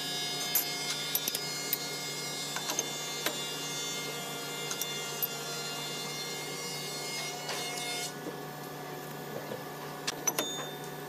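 Steel spacer collars clinking as they are lifted off a spindle moulder's shaft and set down on its metal table, a scattering of sharp clicks with a few close together near the end. Under them runs a steady electric machine hum.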